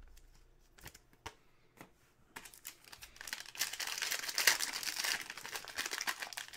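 A foil wrapper on a Panini Prizm football hobby pack being torn open and crinkled by hand. A few light handling clicks come first, then the crinkling starts about two and a half seconds in and grows louder.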